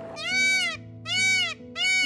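An animal giving short, high, bleat-like calls, each rising and falling in pitch and lasting about half a second, repeated in quick succession over background music.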